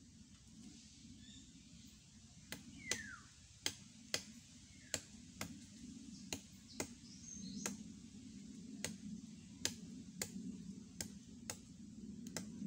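Bolo knife striking and trimming a thin plant stem, a sharp tap with each stroke. The taps begin about two and a half seconds in and come irregularly, roughly one or two a second, over a faint low drone.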